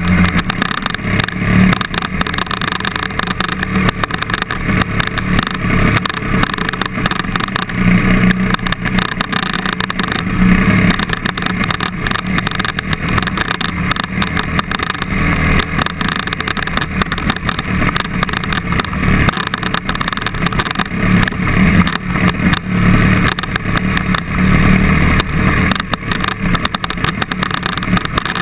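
KTM trail bike engine running under way on a dirt forest track, its revs rising and easing again and again as the rider works the throttle.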